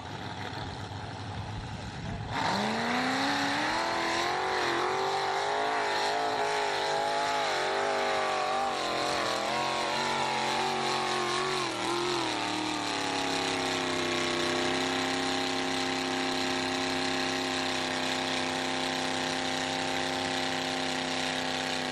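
Modified mud-bog pickup truck's engine at high revs as it drives through the mud pit, starting about two seconds in with a rising pitch, then wavering up and down under load. About 13 seconds in it settles to a steady, unchanging note as the truck bogs down deep in the mud.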